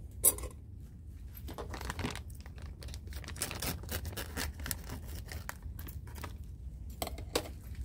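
Plastic bag crinkling and rustling as it is handled, in irregular bursts. A sharp click comes just after the start, and a few more clicks come near the end.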